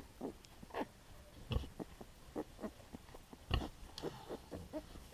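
A farrowing sow giving short, low grunts at irregular intervals, several a second at times, while she is in labour.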